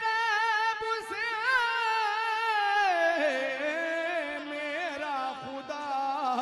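A devotional Urdu song (naat): a single voice holds a long, wavering, ornamented note. About three seconds in it steps down to a lower pitch.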